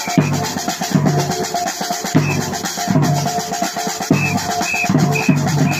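Music with a steady drum-kit beat and sustained tones.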